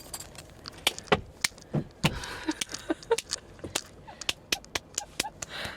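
Irregular sharp slaps, taps and knocks from two people play-fighting, with scuffling between the hits.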